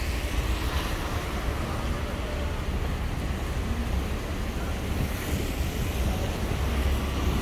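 Wind buffeting the microphone: a steady low rumble over a hiss of background noise.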